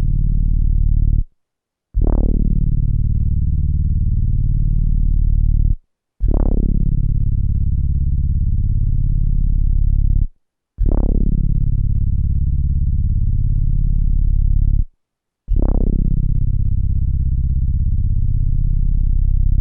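A low synthesizer note sampled and played back on an SP-1200 drum sampler, retriggered about every four and a half seconds. Each hit opens bright and quickly turns dark as the filter closes. The note holds for about four seconds, then cuts off abruptly.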